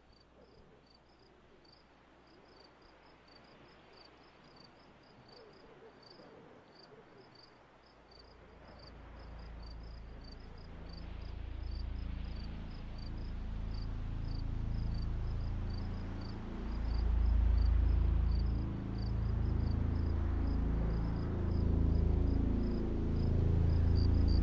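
Crickets chirping steadily, a few chirps a second. About eight seconds in, a low, rumbling drone comes in under them and swells louder toward the end.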